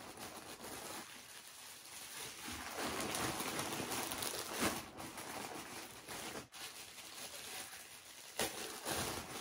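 Rustling of clothes and packaging being handled and sorted, with a few brief knocks.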